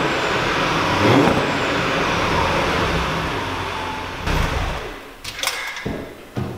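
Audi RS3 8Y's 2.5-litre five-cylinder running through an exhaust with its flaps held fully open: it is revved once about a second in, falls back, and shuts off around five seconds in. A few sharp knocks follow near the end.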